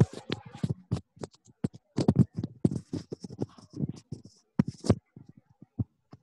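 Rapid, irregular clicking and knocking close to a microphone, heard over a video call. The clicks come in dense clusters and thin out about five seconds in.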